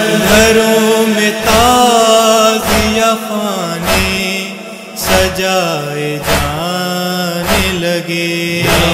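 Nauha, a Shia mourning lament, chanted by male voices in long gliding lines without words clear enough to transcribe, over a steady held hum. A low thump marks the beat about once every 1.2 seconds.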